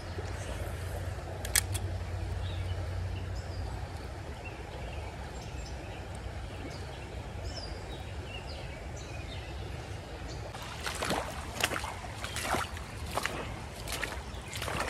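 Outdoor creek-side background with faint bird chirps and one sharp click about a second and a half in. From about ten seconds in, a series of uneven footsteps crunching over wet creek-bed stones.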